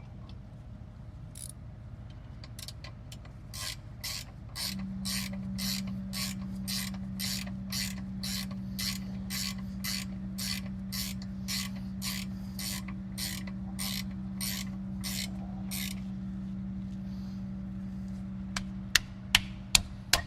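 Ratchet wrench clicking in short back-and-forth strokes, about two a second, tightening the rear hub mounting bolts in small turns because a hose blocks the swing. A steady low hum starts about five seconds in, and a few sharp knocks near the end are the loudest sounds.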